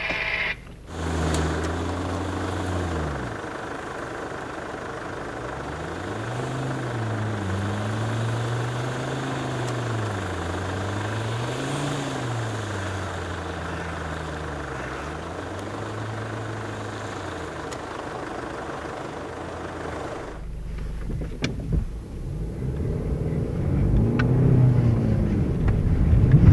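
SUV engine revving up and down over and over, about once every two seconds, as it works through snowy mud. Near the end this gives way to a low rumble inside the cabin, with knocks and splashes that grow louder as mud sprays the windshield.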